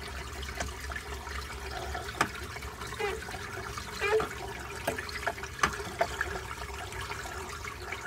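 Water trickling and splashing out of an opened hot tub pump as the tub drains, with a few small knocks as a hand works inside the pump's intake.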